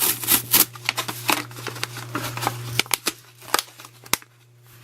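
Small Fiskars scissors and their packaging being handled: irregular sharp clicks and light rustling, busy at first and thinning out toward the end.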